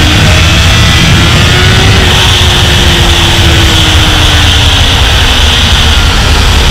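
Honda sport bike's engine running at cruising speed, its note rising a little about two seconds in and then slowly easing off. Heavy wind rush on the onboard microphone covers it.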